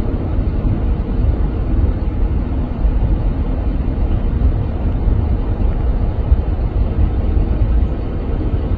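Loud, steady low roar of a ruptured natural gas pipeline burning, with no break or change in strength.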